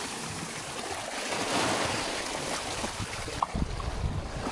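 Small sea waves washing on a sandy shore, a steady hiss of surf. In the second half, wind rumbles on the microphone.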